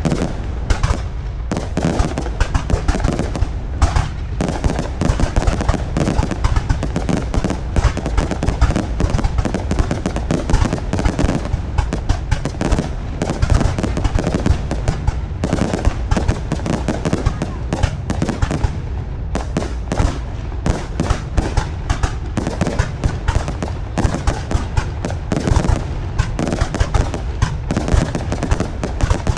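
Fireworks display: a dense, unbroken barrage of bangs from exploding fireworks.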